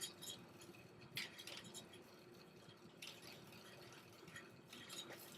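Faint scratchy brushing with a few light taps about a second apart: a makeup brush working powder bronzer.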